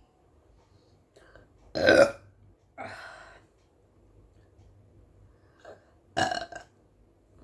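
A woman burping after drinking carbonated Pepsi: two loud burps about four seconds apart. The first is followed within a second by a quieter one.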